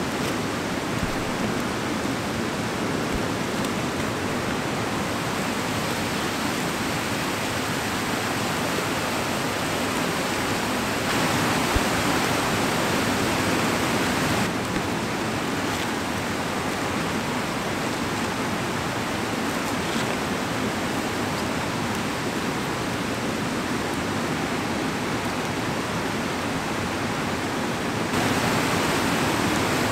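Steady rush of creek water spilling over a small waterfall. It steps louder about a third of the way in, drops back near the middle, and rises again near the end.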